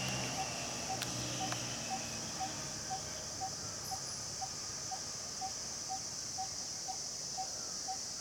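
Short mid-pitched beeps repeating evenly about twice a second over a steady high-pitched hiss.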